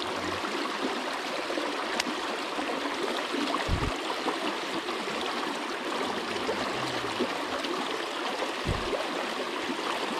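River water rushing and gurgling steadily as it pours through gaps between wooden logs. There is a sharp click about two seconds in, and two brief low thuds, about four and nine seconds in.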